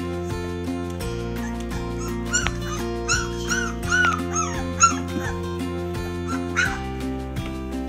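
A three-week-old boxer puppy giving short, high yips and whimpers as it plays with a soft toy: a quick string of them in the middle and one more near the end. Acoustic guitar background music plays under them.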